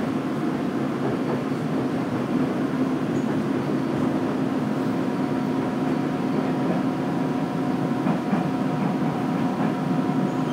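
JR Kyushu 815 series electric multiple unit running, heard from inside the passenger car: a steady rumble of wheels on rail with a constant low hum.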